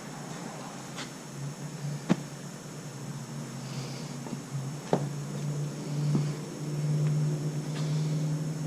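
Steady low hum with a few short sharp knocks spread through it, about four in all; the hum grows louder after about six seconds.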